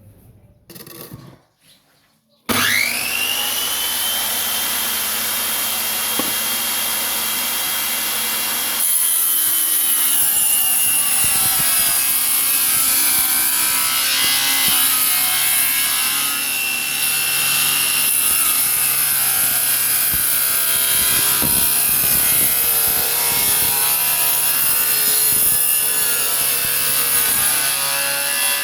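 Circular saw converted into a table saw, with a 7-inch blade: the motor starts a few seconds in with a whine that rises as the blade spins up, then runs steady. About nine seconds in the blade begins cutting wood, louder and rougher.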